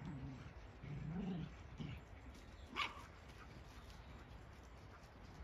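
Dogs playing and chasing each other, fairly faint: a few low, gruff barks in the first second and a half, then one short sharp yip about three seconds in.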